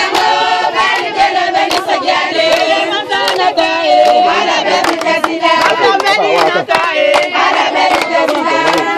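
A crowd singing together and clapping hands.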